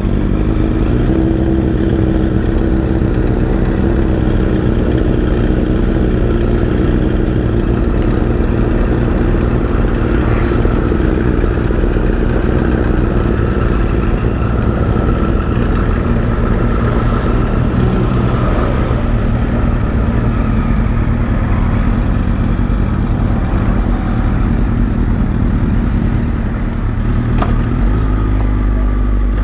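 Suzuki GSX-R1000 K9's inline-four engine with an Akrapovic exhaust idling steadily. The low note changes a little near the end.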